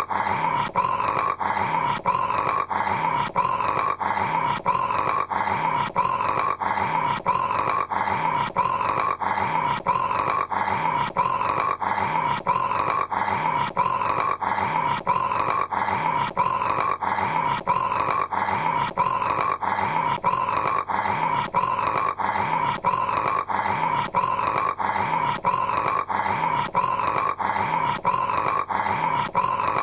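A man snoring in a rasping, growl-like way. The same short snore repeats over and over at a quick, even rhythm, with no breaks.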